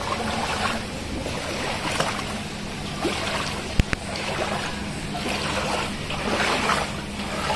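Floodwater sloshing around a person's legs as they wade through it, swelling about once a second with the steps. A single sharp click about halfway through.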